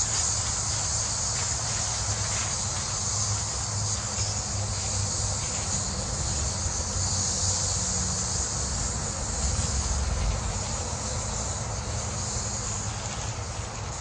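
Chorus of many cicadas buzzing as they are flushed from a tree: one steady, high, unbroken drone, with a low rumble underneath.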